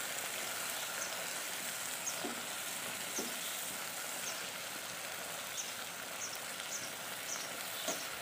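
Watery mustard-paste curry with drumstick pods sizzling and bubbling steadily in a nonstick frying pan on high heat, just after a cup of water went in. A wooden spatula stirs through it, scraping the pan now and then.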